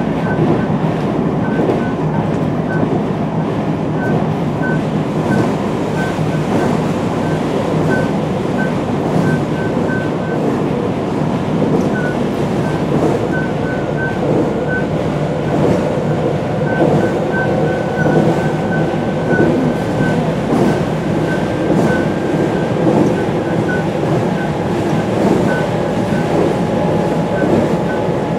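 JR West 223-series 5000-subseries electric train with a Mitsubishi IGBT-VVVF drive running at steady speed: a steady rumble of wheels on rail. Short high chirps recur irregularly throughout, and in the second half a faint tone rises slightly in pitch.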